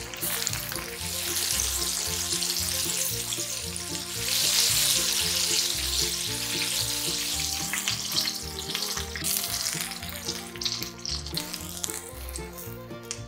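Flour-coated chicken pieces (karaage) deep-frying in hot oil, a steady sizzle that grows louder about four seconds in and dies away near the end.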